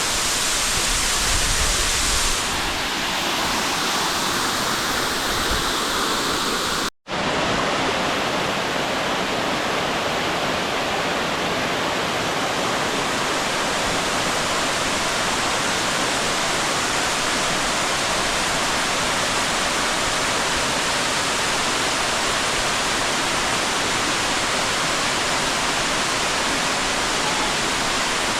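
A tall waterfall's water pouring down in a steady, loud rush. The sound cuts out for a split second about seven seconds in, then carries on unchanged.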